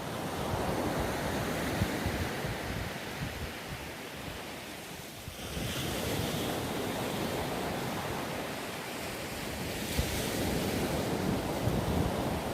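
Sea waves washing and breaking, with wind buffeting the microphone. The surge eases off about five seconds in, then builds again.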